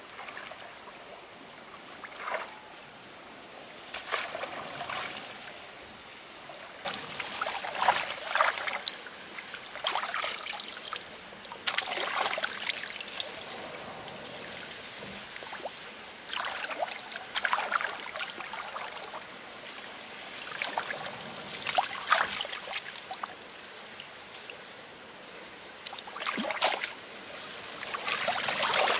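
Shallow muddy water splashing and sloshing as a woven bamboo fish basket is plunged in and hands grope about inside it. The splashes come in irregular short bursts a few seconds apart, with quieter trickling in between.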